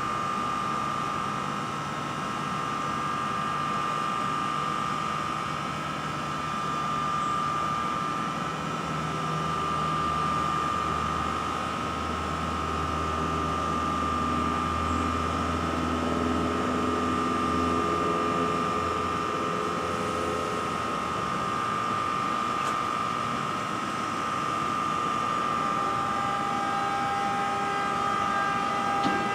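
NJ Transit ALP-46A electric locomotive standing at the platform, its onboard electrical equipment and blowers running with a steady high whine. A low hum swells and fades in the middle, and further tones join near the end.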